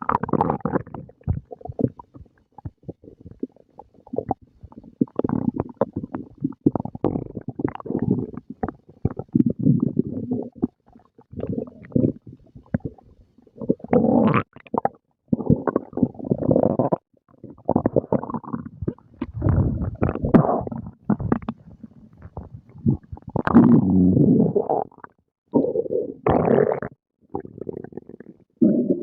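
Human stomach growling and gurgling while digesting a meal. The gurgles come in irregular bursts with short quiet gaps between them.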